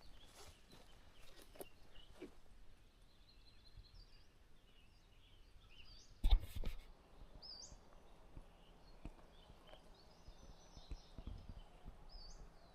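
Small birds chirping with short, sweeping calls, over faint outdoor background noise, with scattered light knocks and one loud thump about six seconds in.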